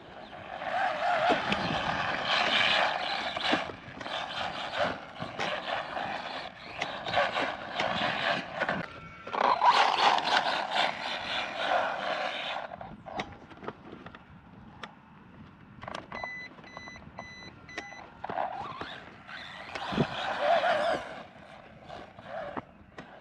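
Mini brushless RC truck (Arrma Mojave Grom BLX) driving in bursts of throttle, its motor whining and its tyres running over the ground. There is a long run, a quieter pause about halfway through, then another short burst near the end.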